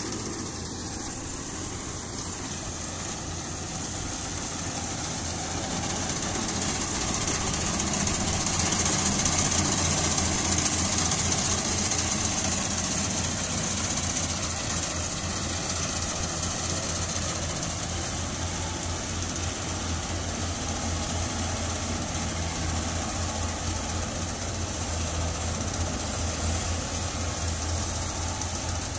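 Yanmar AW70GV combine harvester's diesel engine running steadily under load while it harvests rice through mud, with a steady high hiss over it. It grows louder as the machine comes close, loudest about a third of the way in, then settles.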